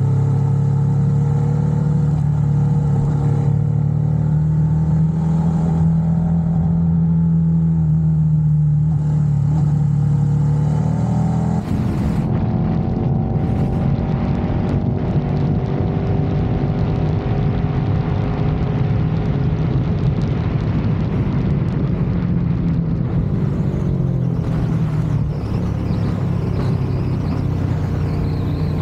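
KTM 1290 Super Adventure S V-twin engine running under way at a steady cruise. About twelve seconds in there is a brief dip, after which the engine pitch rises and falls gently with the throttle.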